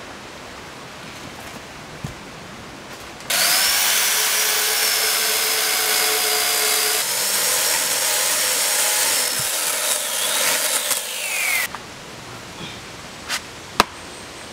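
Corded electric chainsaw cutting through a log. It starts about three seconds in and runs for about eight seconds, a steady high whine over the rasp of the chain in the wood, then dips in pitch and stops. A few sharp knocks follow near the end.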